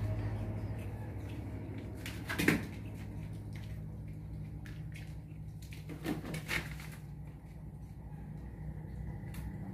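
A few short knocks and rustles from baby monkeys clambering on a table-like play structure, the loudest about two and a half seconds in and two smaller ones around six seconds in, over a steady low hum.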